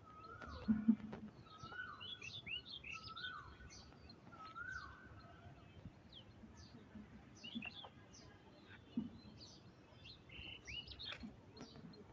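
Birds chirping in many short notes. For the first five seconds a lower call with a falling end repeats about once a second.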